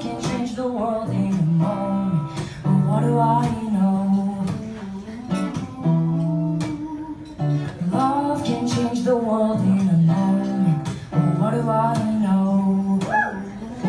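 Live acoustic guitar strummed as accompaniment to male vocals singing a song.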